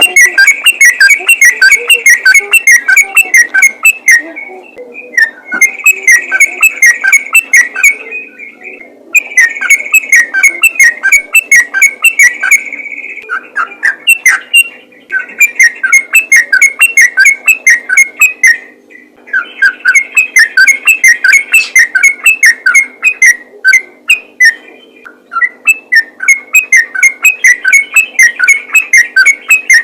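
Yellow-vented bulbul (trucukan) singing a rapid run of short, bright notes, about five a second, in phrases of several seconds broken by short pauses. The song is loud, hitting full scale.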